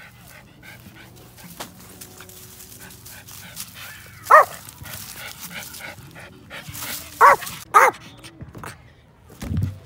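Yorkshire terrier barking: one sharp bark about four seconds in, then two quick barks in a row about three seconds later. A dull low thump near the end.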